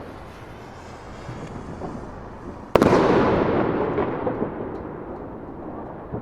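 Firework rocket bursting with one sharp bang about three seconds in, after a steady fading hiss, then a long rumbling echo that slowly dies away.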